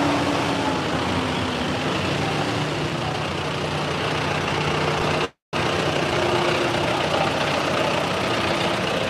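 Diesel tractor engines running steadily as tractors drive past at close range. The sound cuts out completely for a moment a little past halfway.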